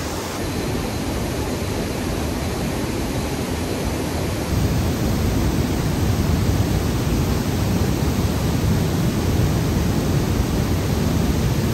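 Water gushing through the upstream lock gate into a stone lock chamber as the lock fills, a steady rushing that grows louder about four and a half seconds in.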